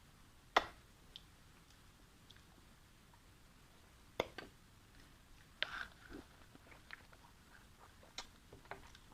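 Close-up eating sounds: a person chewing, with scattered short sharp clicks and smacks, the loudest about half a second in and again around four and six seconds in.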